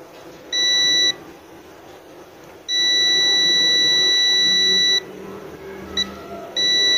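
Clamp multimeter's continuity buzzer beeping as the test probes make contact across the compressor's motor terminals: a steady high tone, on briefly about half a second in, then held for about two seconds, a short blip near six seconds, and on again near the end. The beep marks a low-resistance path through the compressor's winding between the terminals.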